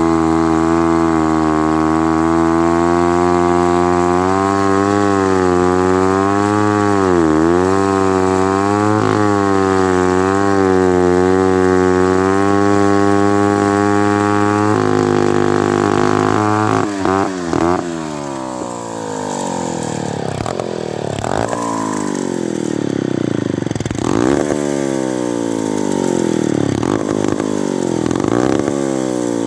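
Lombard Model 35 chainsaw engine running hard through seasoned maple, its pitch dipping as the cut loads it. About halfway through it comes out of the cut. It then runs a little quieter, its speed repeatedly falling and picking back up.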